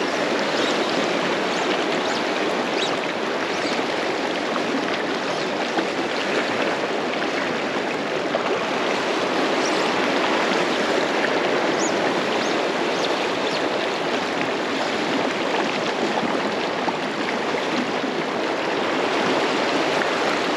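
Fast river current rushing steadily over a rocky riffle, a constant close-by water rush.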